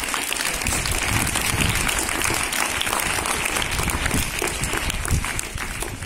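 A group of people applauding, a dense patter of hand claps that holds steady and eases off a little near the end.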